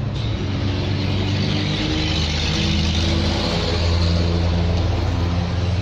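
A motor vehicle engine running steadily, its pitch stepping up slightly about two seconds in.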